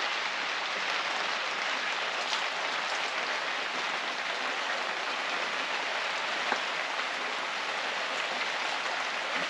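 Steady rush of water pouring into a bucket as it fills.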